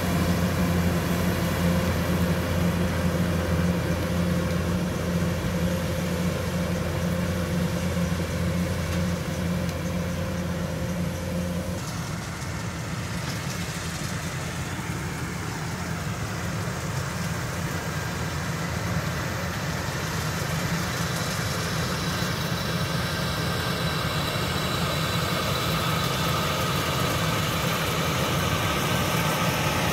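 Kubota DC-105X combine harvester's diesel engine running steadily while it harvests rice: a deep steady hum that becomes less deep and more like an even noise about twelve seconds in, as the machine is heard from farther off.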